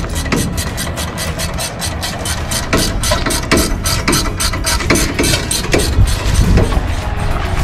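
Ratchet wrench clicking in quick uneven runs as a 4WD's rear wheel hub is worked on, over a vehicle engine running steadily.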